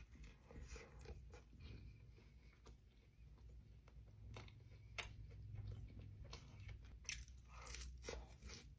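Faint close-up chewing of a buffalo chicken sandwich and fries, with scattered soft crunches and wet mouth clicks.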